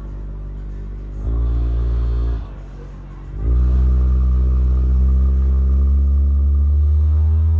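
Sony GTK-XB5 speaker playing a deep bass test tone, a low steady hum with a stack of overtones. It drops in level twice in the first few seconds, comes back loud about three and a half seconds in, and starts to rise in pitch near the end.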